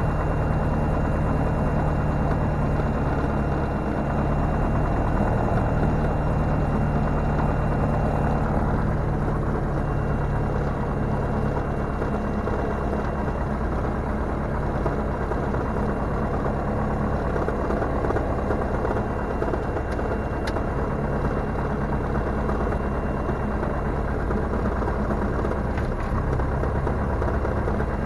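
Diamond DA40 single-engine light aircraft's piston engine and propeller running steadily at low taxi power, heard from inside the cockpit.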